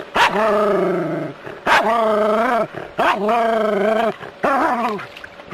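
Small terrier barking at a snake in long, drawn-out barks: three of about a second each, then a shorter one.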